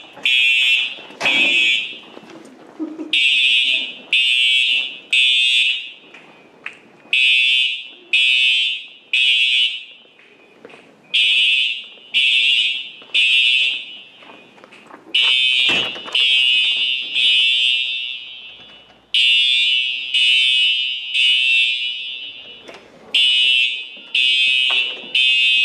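Fire alarm horn sounding the temporal-3 evacuation pattern: three loud, high beeps, then a short pause, repeating every four seconds. In a couple of rounds, a little past the middle, the three beeps run together into one longer blast.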